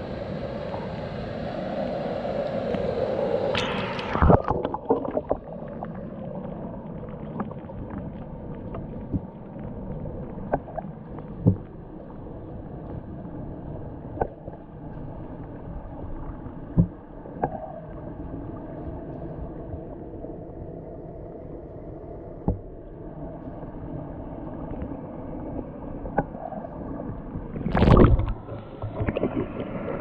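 Water heard at and under the surface of a waterfall pool. A hissing wash at the surface gives way, with a splash about four seconds in, to a muffled underwater wash with scattered small knocks and clicks as the camera is held under. A loud splash near the end marks it coming back up.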